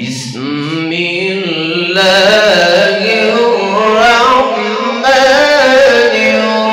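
A young man's voice reciting the Quran in melodic tajweed style, one long drawn-out phrase with ornamented, wavering turns of pitch. It starts abruptly and grows louder and higher about two seconds in.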